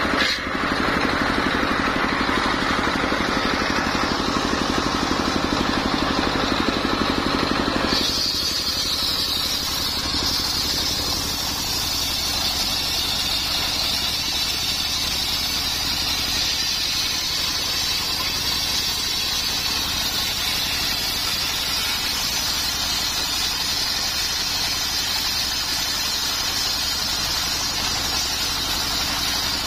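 The engine of a modified car driving a homemade circular saw, running steadily. About eight seconds in the sound changes abruptly and a higher whine comes up.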